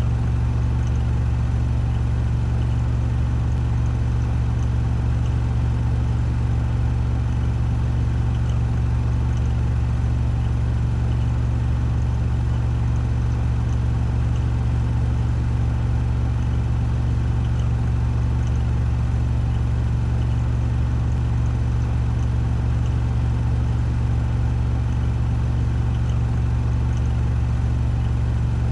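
Washing machine drum in its spin cycle at 1400 rpm, a steady low hum with a faint whir and rattle above it, unchanging.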